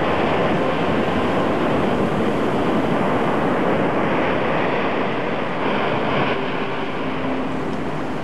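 Ocean surf breaking and washing up a sandy beach: a steady rushing of waves and foam, easing a little in the second half.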